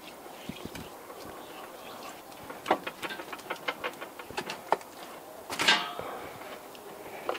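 Hands working a large raw beef joint on a metal baking tray: a run of quick slaps and taps on the meat, then a louder clatter against the tray as the joint is turned over, about five and a half seconds in.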